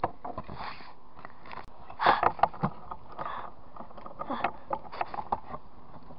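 Handling noise close to the microphone: scattered clicks and short rustling bursts as small plastic toy figures and a little plastic box are moved about by hand, with the camera itself briefly handled near the end.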